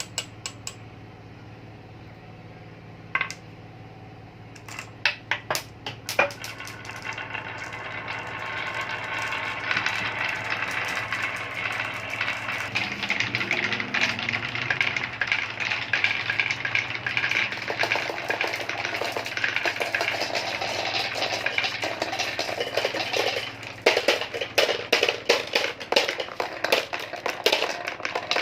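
Glass marbles on a wooden marble run: a few single clicks at first, then from about seven seconds in a continuous rolling rattle as marbles run down the track, turning into dense clinking of marbles against each other and the track from about 24 seconds. A low steady hum sits underneath throughout.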